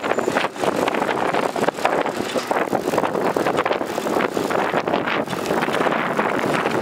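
Wind rushing across the microphone of a camera riding on a moving bicycle: a steady noise with a constant rapid flutter.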